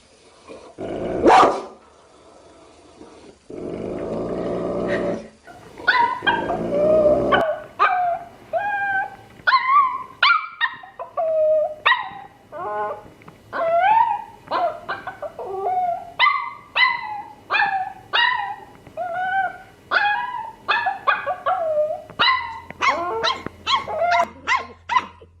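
Dogs barking and growling. From about a third of the way in comes a long run of short, high yips, roughly two a second, each sliding in pitch.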